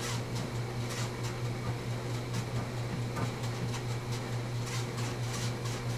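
A steady low hum, like a fan or machinery, with a few faint ticks; no gunshot stands out.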